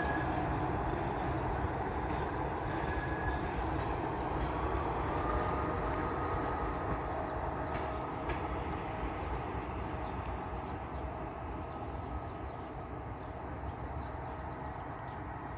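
Passenger train running away along the track, a steady rumble of locomotive and coaches that fades gradually as it recedes.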